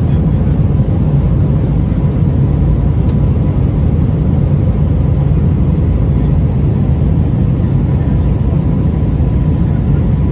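Steady, loud roar of an Airbus A321 airliner heard from inside the passenger cabin: jet engines and airflow, deep and even, with a faint steady hum above it.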